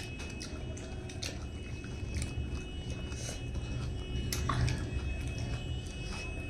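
Close-up chewing and biting of food, with irregular sharp crunchy clicks about once a second, over a steady low hum.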